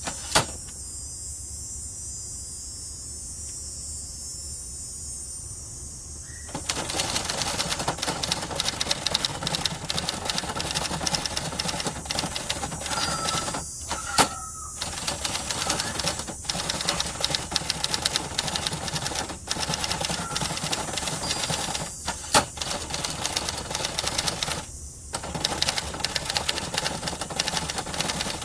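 Typing on a 1970s Adler Gabriele 25 manual typewriter: a dense, fast clatter of keys and typebars striking. It starts after a pause of about six seconds and breaks off briefly twice, with a few louder single strikes among the keystrokes.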